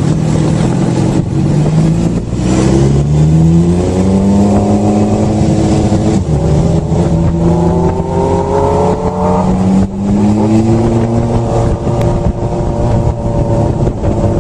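Motorcycle engine running under load and accelerating, its pitch climbing in stages with a sudden drop about ten seconds in, like a gear change.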